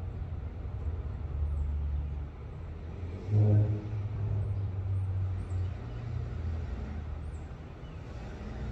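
Low, steady rumble of a motor vehicle's engine, swelling louder for about half a second about three and a half seconds in.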